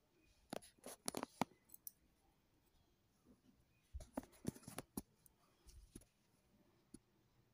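Light clicks and taps of a spoon against small containers as dhokla batter is spooned into them, in two short clusters, one early and one about four seconds in, with a few single ticks after.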